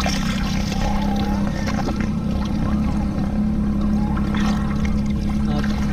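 Shallow river water flowing and swirling around a wading person's legs, over a steady low hum.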